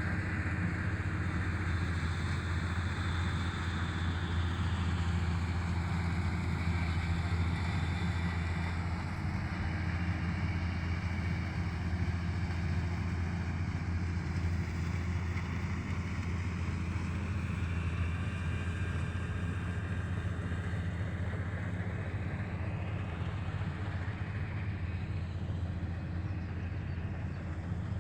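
Kubota DC-35 combine harvester running steadily while harvesting rice: a constant low diesel drone with a rushing, hissing noise over it, unchanging throughout.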